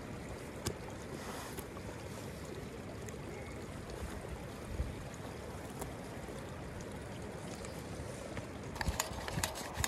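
Steady rushing outdoor ambience, with a few light clicks and knocks near the end.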